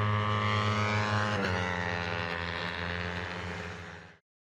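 Racing sport-bike engines running hard as a group of motorcycles comes through a corner, the pitch dropping about a second and a half in. The sound fades away and cuts off near the end.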